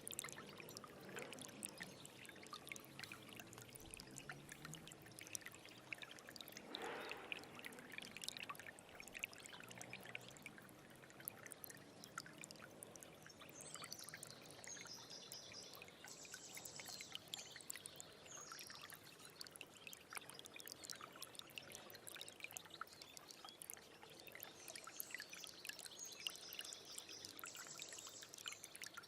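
A small stream trickling and babbling over stones in a steady flow of fine splashes and gurgles. A high trilling call sounds twice over the water, around the middle and near the end.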